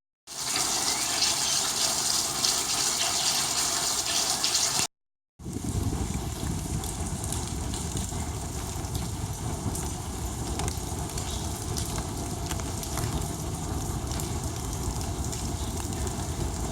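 Rushing water: a steady gushing hiss. It stops at a short cut about five seconds in and comes back fuller and deeper.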